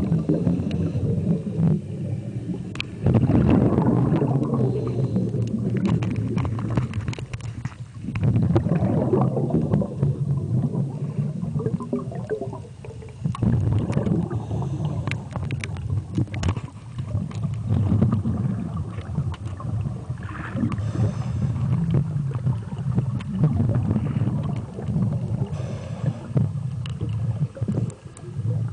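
Water noise picked up by a submerged camera: a low, uneven rumble that swells and fades every few seconds, with scattered clicks and knocks.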